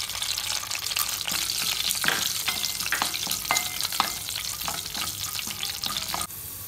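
Tempering seeds and dried red chillies sizzling and crackling in hot oil in a metal pot, with a spoon stirring and scraping against the pot. It gets a little quieter shortly before the end.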